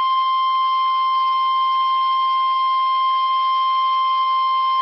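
NOAA Weather Radio 1050 Hz warning alarm tone: a single steady, loud tone that cuts off abruptly at the end. It signals that a warning message, here a tornado warning, is about to be broadcast.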